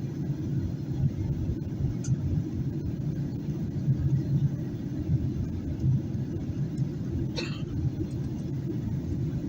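Steady low rumble inside a Boeing 737-800's cabin during descent: the engines and airflow, heard from a rear economy window seat. A brief, wavering, higher-pitched sound comes about seven seconds in.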